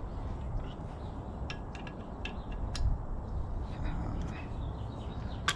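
Scattered light metallic clicks and clinks of bicycle parts and tools being handled, with a sharper click near the end.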